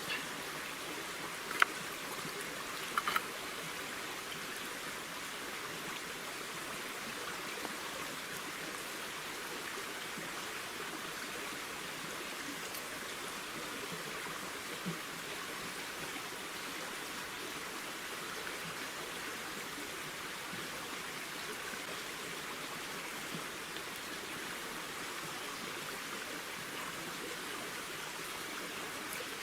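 A steady rushing hiss like running water, with a couple of sharp clicks in the first few seconds.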